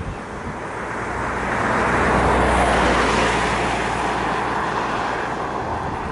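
A road vehicle passing close by on the road: tyre and engine noise with a low rumble that rises to its loudest about two to three seconds in, then fades away.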